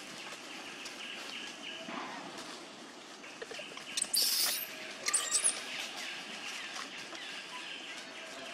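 Baby long-tailed macaque screaming: one short, very high-pitched shriek about four seconds in, then a couple of shorter high squeals a second later.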